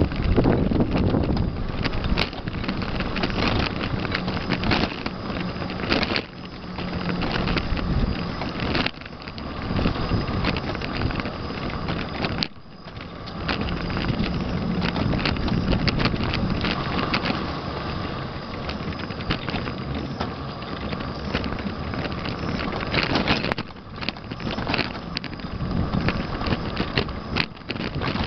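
Wind buffeting the microphone of a camera riding along at speed, with steady rushing noise and frequent sharp rattles and knocks from the ride over the path.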